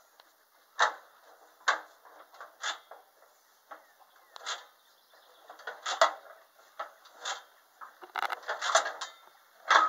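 Sharp metallic clanks and knocks, about a dozen at irregular intervals with a busier cluster near the end, from handling the hand crank and sheet metal at the front of a Farmall A tractor before cranking; the engine is not running.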